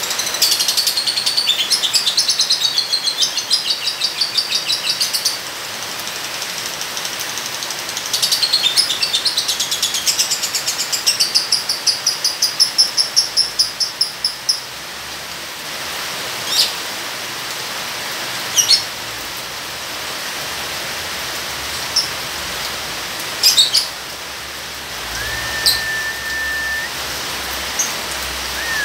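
Lovebird ngekek: two long, rapid chattering trills of about five and six seconds, then a handful of single sharp chirps, over a steady hiss of rain. A short held whistle at a lower pitch sounds near the end.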